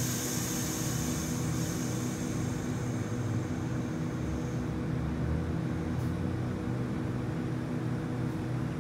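Stationary Waratah electric train humming steadily, a mix of several low tones from its on-board equipment. A high hiss fades away over the first few seconds.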